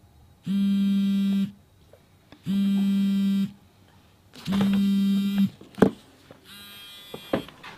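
Mobile phone on vibrate buzzing with an incoming call: three one-second buzzes about two seconds apart. The buzzing stops, and then come a sharp click and a smaller click.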